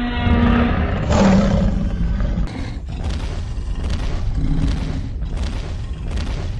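Creature roar sound effects: a loud, rough roar starts about a second in, then a run of short, rough repeated growls, two or three a second, over a constant low rumble.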